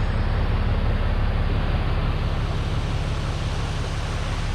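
Motor vehicle engine running steadily with a low rumble and a rushing hiss over it.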